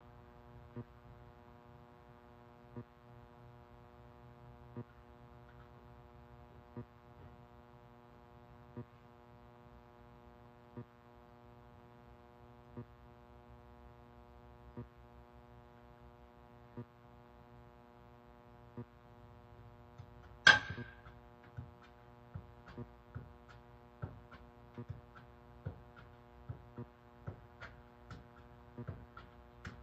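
Steady electrical hum with a faint click every two seconds. About twenty seconds in there is one sharp, ringing knock, after which the clicks come quicker and unevenly.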